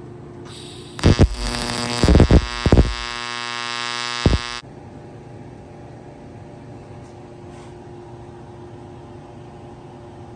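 Welding arc buzzing while a small aluminum panel is tack-welded into a fuel tank, with a few sharp cracks along the way, for about three and a half seconds, then cutting off suddenly. A steady low hum runs underneath throughout.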